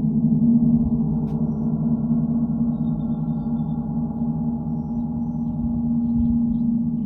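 Gong ringing in a sustained, shimmering wash of many overlapping tones, with a deep hum at its core; it dips slightly in the middle and swells again near the end.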